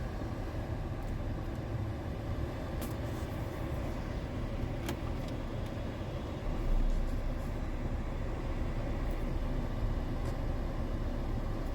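Steady low rumble of a car heard from inside the cabin as it rolls slowly forward, with a few light clicks and a low bump about seven seconds in.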